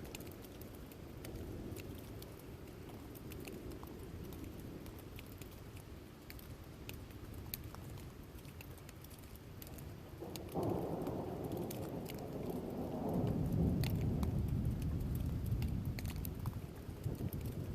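A thunderstorm: steady rain with scattered drips, then a thunder clap breaks about ten seconds in and rolls into a deep rumble that peaks a few seconds later and fades.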